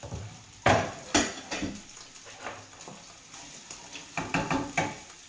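Kitchen clatter over a frying pan: two sharp knocks about a second in, then a run of lighter clicks near the end as a utensil works in the pan, with the soffritto sizzling softly underneath.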